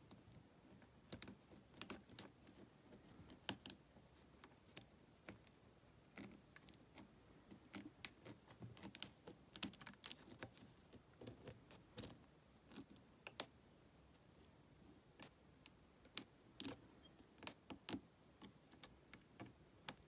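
Faint, irregular clicks and light scrapes of a lock pick working the pin tumblers of a Lockwood 120N 50 mm brass padlock, with a tension wrench held in the keyway.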